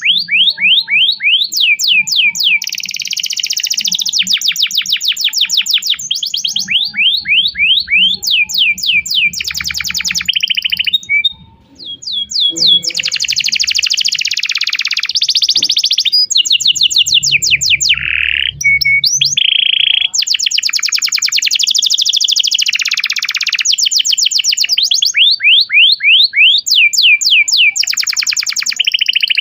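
Domestic canary singing a long, loud, unbroken song of rapid repeated chirping trills and buzzy rolls. The song pauses briefly about eleven seconds in.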